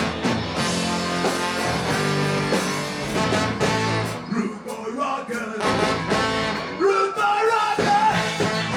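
Ska band playing live: electric guitar, bass and drums with singing. Around the middle the low end drops out for a few seconds, leaving sparser held notes, and the full band comes back in near the end.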